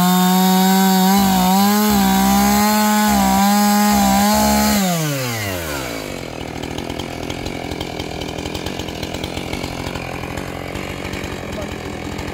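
Chainsaw cutting through a firewood log at full speed, its pitch dipping briefly as the chain bites into the wood. About five seconds in, the revs fall away in a smooth downward glide, and the saw runs on quietly at low speed after the cut.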